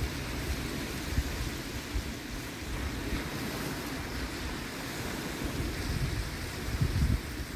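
Surf washing on a sandy beach in a steady rush, with wind gusting on the microphone.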